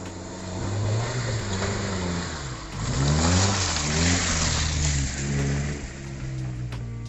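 Off-road 4x4's engine revving hard as it drives through deep mud ruts and passes close by. The engine pitch climbs steeply about three seconds in, and the sound is loudest as the vehicle goes past with its tyres spraying mud.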